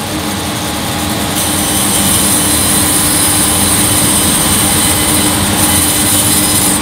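Hammer N3800 bandsaw running with its 2 hp motor and ripping a thin veneer from a European beech board, with a steady hum under the hiss of the blade in the wood. The cutting hiss grows louder about a second and a half in and carries on steadily.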